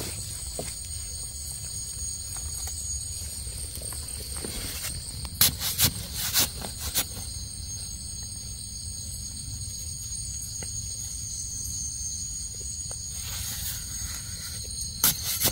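Steady high-pitched chorus of insects, several thin tones held without a break, over a low rumble. A cluster of sharp crackles comes about five to seven seconds in and again near the end.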